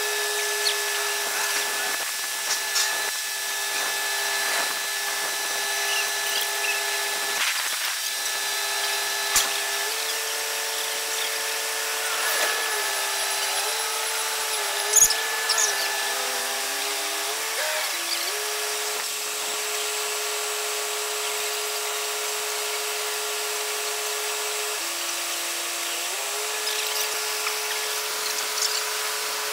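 High, steady mechanical whine from heavy construction machinery working the bridge into place. Its pitch steps up and down several times, and there are two sharp knocks, about nine and fifteen seconds in.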